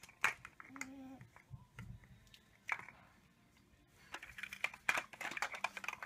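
Large plastic toy building blocks clicking and knocking together as a toddler handles them: a few separate clicks at first, then a quick run of clicks and rattles over the last two seconds.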